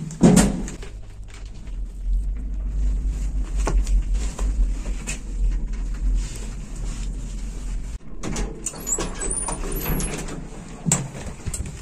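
Elevator ride: a knock as the car is entered, then the steady low hum of the lift car travelling. About eight seconds in the hum stops and the sliding doors open with clunks and faint high squeaks.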